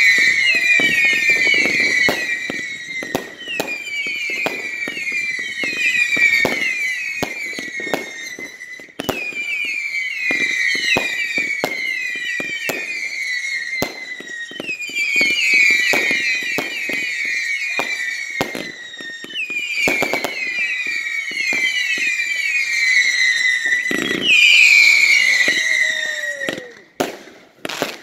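Fireworks firing volley after volley of whistling shots: many overlapping shrill whistles, each falling in pitch, come about every three to four seconds over a run of pops and bangs. Near the end the whistles stop and a few sharp bangs follow.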